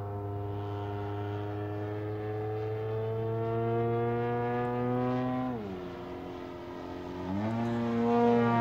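Freshly rebuilt DA-120 twin-cylinder two-stroke gas engine with canister exhaust and propeller, flying an aerobatic RC plane. Its steady drone rises slowly in pitch, drops sharply as it is throttled back about five and a half seconds in, then climbs again as the throttle is opened near the end.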